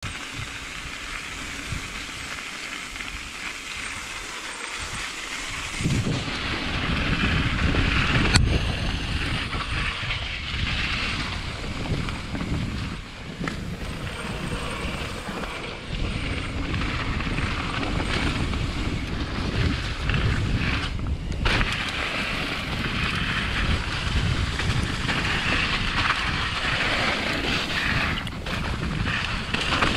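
Mountain bike riding down a dirt trail: tyres rolling over the dirt, rattling from the bike and wind on the camera microphone. The rumble gets louder about six seconds in, with a sharp knock about eight seconds in.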